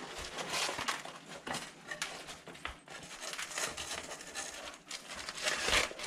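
Rustling and crinkling of a padded fabric foil bag, handled as a hydrofoil is slid into it, with a louder swish just before the end.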